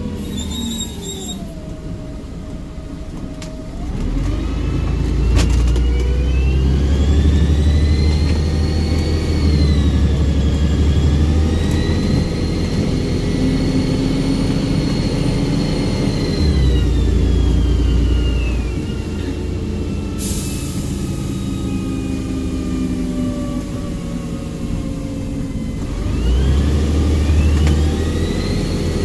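Volvo Olympian double-decker bus's turbocharged diesel engine pulling away under load, with a high turbo whistle that rises, holds steady for several seconds, falls away as the driver comes off the throttle, then rises again near the end. A short sharp hiss of air, typical of the air brakes, cuts in partway through.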